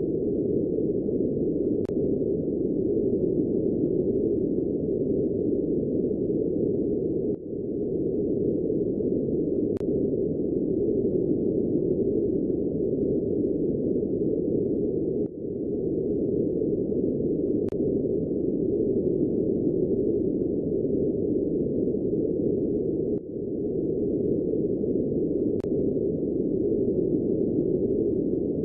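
Synthesized space-sound drone presented as the sound of Uranus's moon Belinda: a steady low droning noise that repeats as a loop about every eight seconds, each repeat marked by a brief dip and a faint tick.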